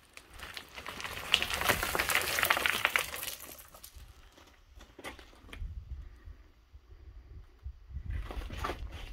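Footsteps and scrambling over loose rock rubble, with stones crunching and clicking underfoot. It is loudest and densest between about one and three and a half seconds in, goes quieter with a low rumble, and picks up again near the end.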